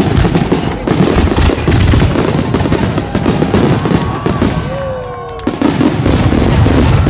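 Large fireworks barrage: many shells bursting in quick succession into a continuous dense crackle, with whistling shells gliding in pitch, one falling whistle about five seconds in before a brief lull.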